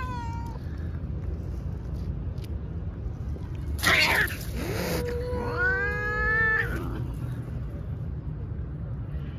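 Domestic cat meowing: a short meow right at the start, then after a loud noisy burst about four seconds in, one long drawn-out meow that rises and then holds steady for over a second.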